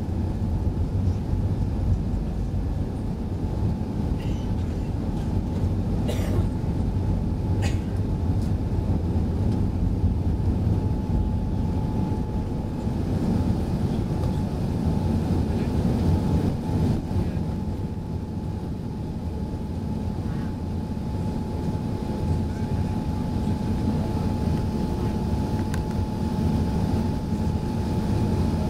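Airbus A380's Engine Alliance GP7200 turbofans at takeoff thrust, heard from inside the cabin through the takeoff roll and into the climb: a steady deep rumble with a steady high fan tone running through it.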